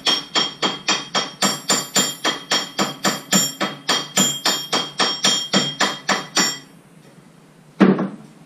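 Hand hammer striking a red-hot steel bar on a small anvil to forge a rivet, a quick even run of ringing blows at about four a second that stops a little before the end. One single, louder knock follows near the end.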